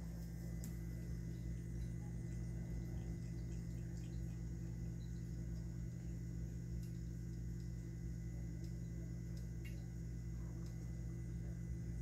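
Cat water fountain's small pump running with a steady low hum, water trickling from its spout, and a few faint ticks.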